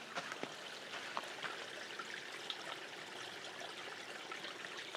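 Small forest creek trickling faintly over rocks, a steady soft wash of running water.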